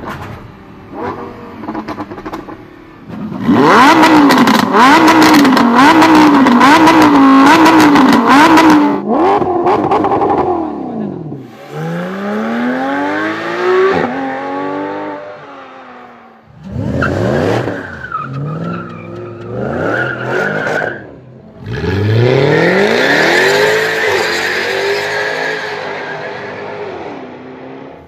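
Supercar engines revving and accelerating hard in a run of short clips. First the revs are blipped rapidly up and down with a burst of sharp crackles and pops. Then the engine pitch climbs again and again as cars pull hard through the gears.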